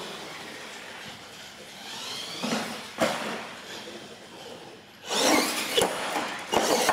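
R/C monster truck motors whining and tires scrubbing on a concrete floor, with a sharp knock about three seconds in. From about five seconds in there is a louder stretch of motor whine, clattering and scraping as a truck tips onto its side against a tire-padded pole.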